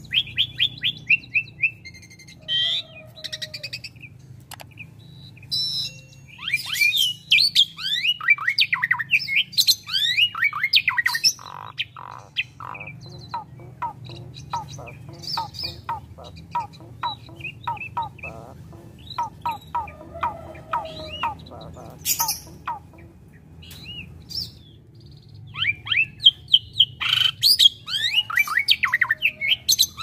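Asian pied starling (jalak suren) singing a long, varied song of fast whistled down-slurred notes, chatters and harsh squawks, with a run of short repeated notes about two a second through the middle. Its song is loaded with rare learned 'isian' phrases, fill-ins copied from other birds.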